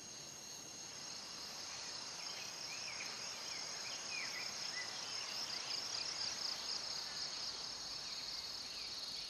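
A steady, high-pitched chorus of insects shrilling, with a scattering of short chirps over it in the middle of the stretch.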